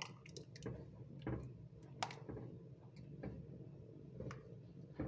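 A spatula stirring thickened, steaming starch paste in a pot: faint squishy sloshing with scattered soft clicks and taps.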